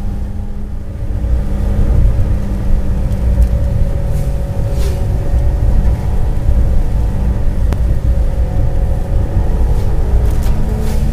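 Car driving along a rain-wet road, heard from inside the cabin: a steady low engine and road rumble, with a few short swishes over it.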